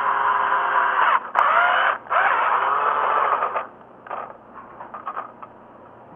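Electric drill boring a hole in a 1:18 diecast model car. It runs in three stretches of one to two seconds with brief stops, its pitch wavering under load, then gives a few short blips of the trigger.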